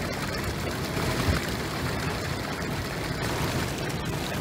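Steady rush of wind and water with a low rumble, heard from the deck of a moving boat.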